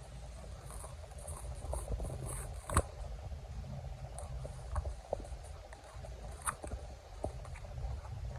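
Packaging being handled during an EarPods unboxing: scattered light clicks, scratches and rustles, with a sharper click about three seconds in, over a low rumble of handling noise on the microphone.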